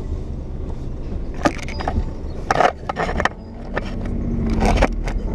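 Handling noise from an action camera being picked up and repositioned, with several rubbing and knocking sounds of fabric and hands against the microphone over a steady low rumble.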